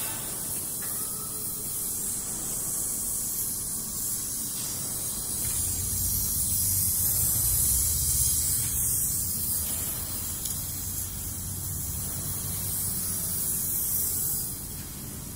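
Gas brazing torch flame hissing steadily while it heats a copper refrigerant pipe joint, with a low rumble that swells in the middle; the hiss drops off just before the end.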